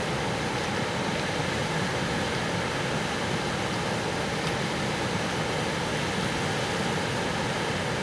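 Jyrävä, a nine-metre waterfall, running in full flow: a steady, loud rush of falling white water plunging into its pool.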